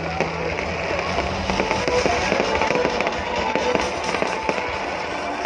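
Fireworks bursting and crackling in quick, irregular cracks, over loud music.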